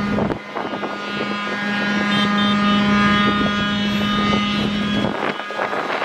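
A vehicle engine running with a steady drone. It drops away suddenly about five seconds in.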